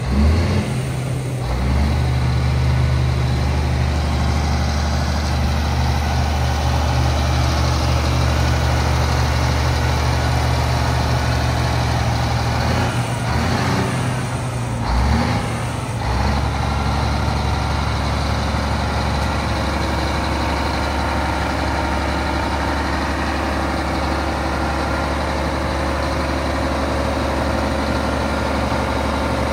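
Scania R420 truck's 12-litre straight-six diesel idling steadily, with two short noisy stretches near the start and about halfway through.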